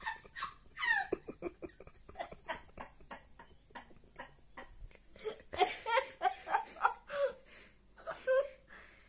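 Kittens mewing, with a falling mew about a second in and a run of short mews mixed with soft human giggling in the second half.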